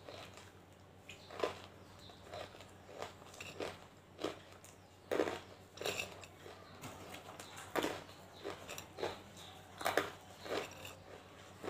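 Hard banslochan (tabasheer) pieces being bitten and chewed: sharp, irregular crunches about once a second, some louder than others.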